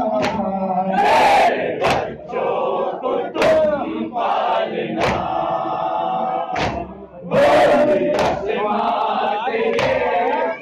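A group of men chanting a noha (Shia mourning lament) together, with loud sharp strikes in unison about every second and a half: the beat of matam, chest-beating in time with the lament.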